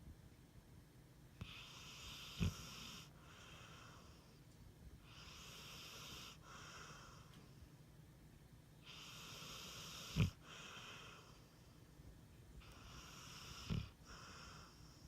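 Pit bull snoring in its sleep: slow, wheezy, hissing breaths every few seconds, with a short, loud snort three times.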